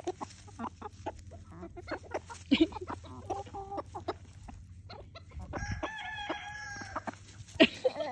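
Chickens clucking in short scattered calls, then a rooster crowing once, a long held call starting about five and a half seconds in. A sharp tap near the end.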